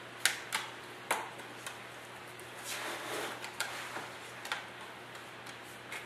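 Scattered light taps and clicks as small clumps of wet cement-and-aggregate mix for homemade aquarium rock drop from a gloved hand into a plastic tub, with a brief soft scraping rustle about three seconds in.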